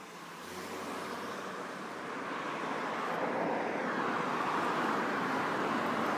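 A steady rushing noise fades in from silence and grows gradually louder, with no clear tones or separate knocks in it.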